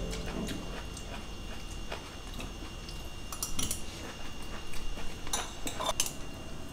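Stainless steel fork and spoon clinking against a ceramic plate and soup bowl while eating: scattered light clicks, more of them in the second half.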